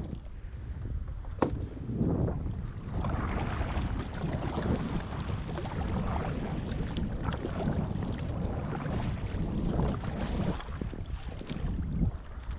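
Wind buffeting the microphone over water slapping and sloshing around a Viking Profish Reload fishing kayak as it is paddled through chop, with a sharp knock about a second and a half in.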